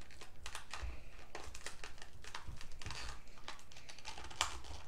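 Plastic packaging of a Goo Jit Zu mini toy crinkling and crackling as it is handled and peeled off, with one louder crackle near the end.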